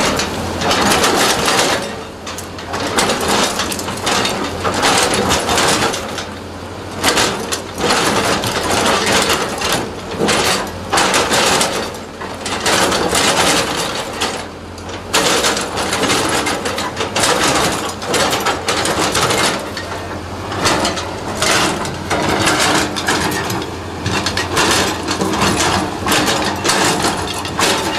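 Caterpillar hydraulic excavator digging into a rock face: the steel bucket scrapes and grinds against rock, with stones clattering and falling in irregular surges, over the steady hum of the diesel engine.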